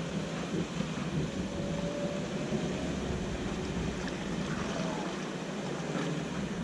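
Vehicle engine idling steadily, a low continuous drone.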